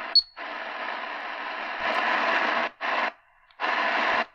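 Realistic DX-380 shortwave radio: a short high key beep as the frequency is entered, then shortwave static and hiss from its speaker with no clear station. The hiss is cut by brief silences as the receiver's mute-on-tuning blanks the audio while it steps up the band.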